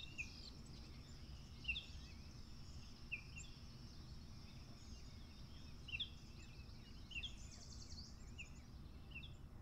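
Faint forest ambience: small birds giving short, scattered chirps over a steady hiss, with a brief fast trill about three-quarters of the way through.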